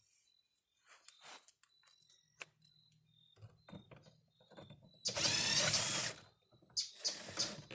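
A power driver spinning in a loud burst of about a second, about five seconds in, and again briefly near the end, backing out the bolts that hold the car's door trim panel, with small handling clicks and rattles before it.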